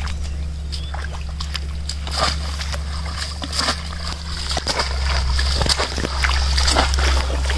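Water splashing and sloshing in irregular bursts as people wade through a shallow, weedy pond and a bamboo polo basket trap is pushed down into the water, over a steady low rumble.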